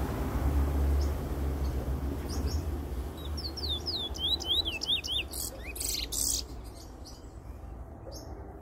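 Caged bullfinch singing: a few short chirps, then a quick run of about eight clear falling whistled notes a few seconds in, ending in some harsh scratchy notes.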